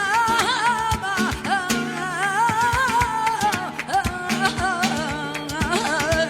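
Flamenco song: a cantaor holds a long, wavering sung line with ornamented turns in pitch, over flamenco guitar strumming and plucking.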